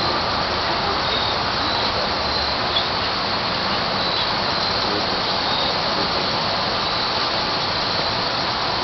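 Steady, even hiss of background noise, with faint short high chirps now and then.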